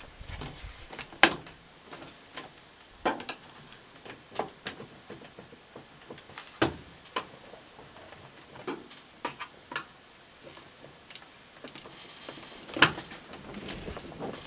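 Irregular plastic clicks and knocks as the snap tabs of a washing machine's plastic control panel are pushed and pried, the tabs springing back into place. Two sharper clicks stand out, about a second in and near the end.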